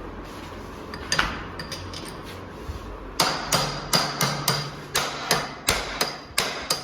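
Hammer blows on metal during work on a dismantled motorcycle engine: one strike about a second in, then a quick run of about a dozen strikes, roughly three a second, each with a short metallic ring.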